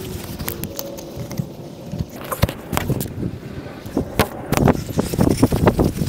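Handling noise from a camera being carried and swung about, played back at four times normal speed, so it comes out as quick scattered clicks and rustles. The clicks grow much denser over the last second and a half.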